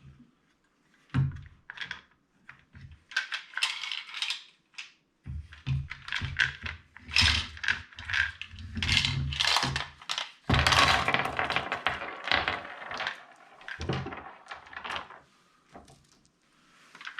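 Mag Pump magazine loader being worked with 9mm cartridges inside: repeated plastic-and-metal clacks and rattling rounds, busiest about two-thirds of the way through. The loader is failing to feed the rounds into a Girsan MC28 magazine.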